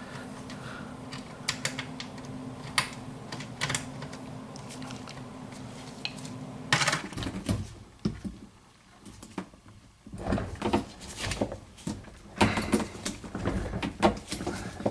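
Scattered clicks, taps and light metal clatter of fittings and hand tools being handled while a dishwasher's water supply line and inlet valve are hooked up. A low steady hum cuts off about seven seconds in.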